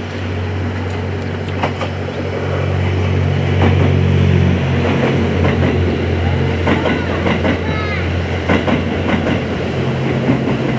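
A diesel train passing with a steady engine hum that drops in pitch about halfway through, its wheels clicking over rail joints.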